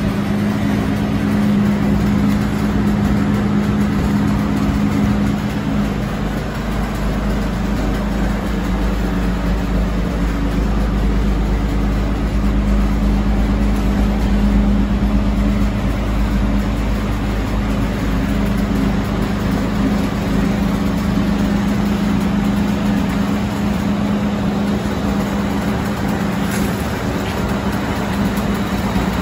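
1950 Plymouth Suburban's flathead six-cylinder engine idling steadily, a low even hum that holds without change.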